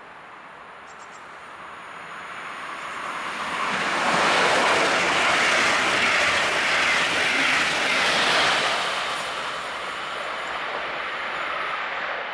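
A double-deck regional train passing close by at speed. Its rolling noise builds over the first few seconds, is loudest for about five seconds as the coaches go by, then eases off to a lower steady rumble.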